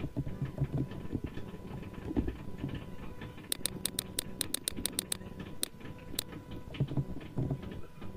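Computer keyboard and mouse clicking during text editing, with a quick run of about a dozen sharp clicks in the middle, over a faint steady hum.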